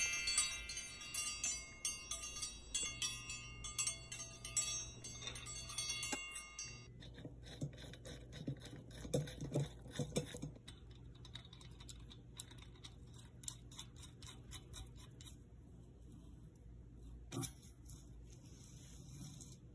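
Bright, many-toned chiming that rings on and cuts off about seven seconds in, followed by faint scattered clicks and taps.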